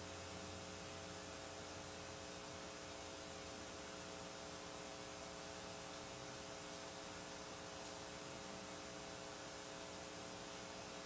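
Steady electrical hum with a few fixed tones over an even hiss. This is room tone through the microphone system, with no other event standing out.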